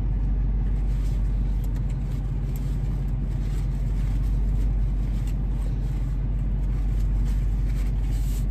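Steady low hum of a parked car's idling engine, heard from inside the cabin, with faint clicks of chewing and a paper burger wrapper rustling over it.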